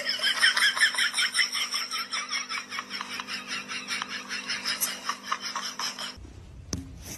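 A microwave door rattling against its child lock in quick, repeated clacks, several a second, as a cat paws and tugs at it, over a steady low hum. The clacking cuts off about six seconds in.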